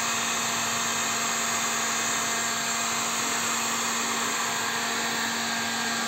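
Electric heat gun running steadily, its fan blowing hot air with a constant low hum, used to heat a seized fastener on a mixer tap to free it.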